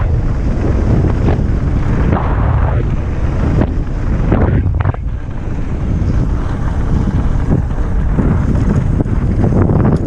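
Wind rushing over a helmet- or bike-mounted action camera's microphone during a fast mountain-bike descent on a dirt trail, with tyre noise and scattered knocks as the bike goes over bumps.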